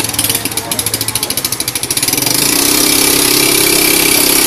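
Small scooter engine putting along with a fast, even pulse, then picking up revs steadily as the scooter pulls away.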